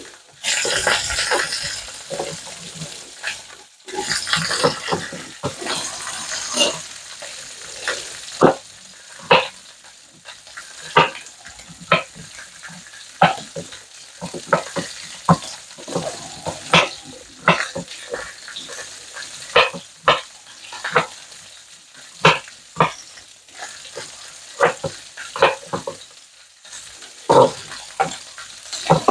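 A kitchen knife chopping garlic cloves on a bamboo chopping board: sharp, uneven knocks, about one a second. In the first few seconds there is a busy clatter and rustle as chopped onion is spooned into a blender bottle, and a low sizzle of meat frying runs underneath.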